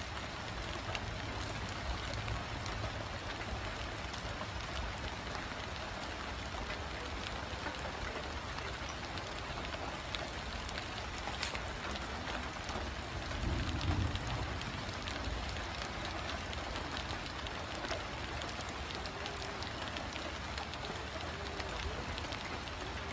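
Light drizzle falling steadily, a fine patter of raindrops on wet ground. A brief low rumble sounds about halfway through.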